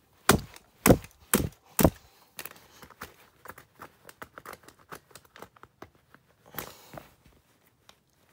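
Vintage Sony cassette player being banged on: four hard knocks about half a second apart, then a run of lighter clicks and rattles, and a short burst of noise about two-thirds through.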